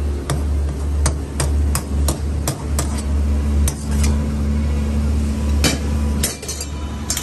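Sharp metal knocks in a quick, even rhythm, about three a second, thinning out to a few scattered knocks after about five seconds. Under them runs the steady low roar of gas burners firing under steel karahi woks.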